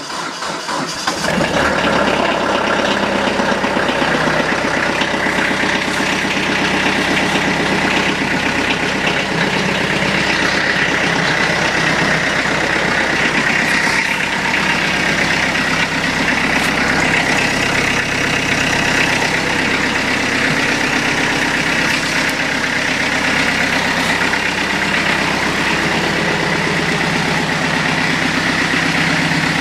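Kubota B3030's three-cylinder diesel engine cranking and catching about a second in, then idling steadily: a cold start after sitting a month and a half.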